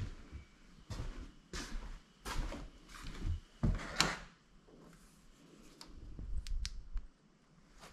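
Footsteps on old wooden floorboards, a step roughly every three-quarters of a second for the first four seconds, then quieter shuffling with a few faint clicks.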